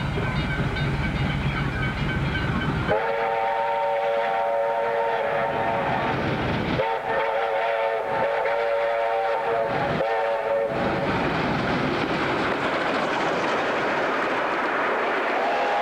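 Victorian Railways K class 2-8-0 steam locomotive K153 whistling as it approaches under steam: one long blast starting about three seconds in, then several shorter blasts until about eleven seconds in, over the rumble of the working engine. The noise then grows as the locomotive runs close past, and the whistle starts again near the end.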